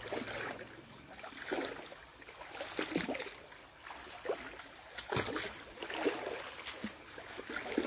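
Irregular footsteps about once a second through a shallow stream bed and leaf litter, over a faint trickle of flowing water.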